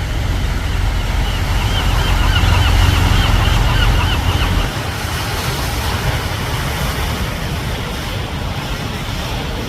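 Ocean surf washing against rocks, with wind buffeting the microphone; the low wind rumble drops off about five seconds in. For a few seconds near the start, a wavering high-pitched call rises above the surf.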